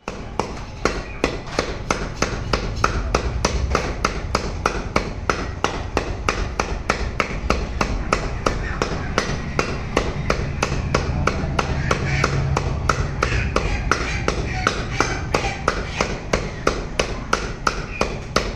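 Butcher's cleaver chopping raw chicken on a wooden chopping block, quick steady strikes at about three a second.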